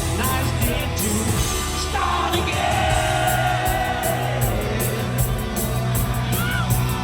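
Live hard rock band playing at full volume, with cymbals keeping a steady beat over bass and guitar. A long held vocal note comes in about two and a half seconds in.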